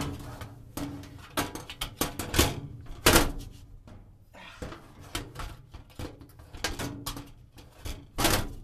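Furnace filter being worked into its slot in the furnace, with a string of irregular knocks, bangs and rattles, the loudest about three seconds in and near the end. The filter's bottom edge keeps flapping up instead of sliding into its groove, so it is being banged and shoved to seat it.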